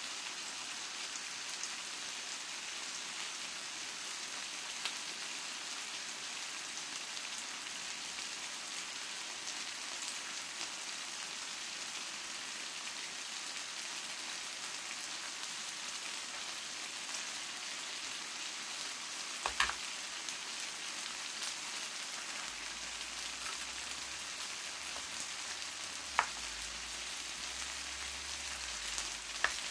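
Pork belly slices in marinade sizzling steadily in a skillet on a portable gas stove. A few sharp taps come through it, about two-thirds of the way in and near the end.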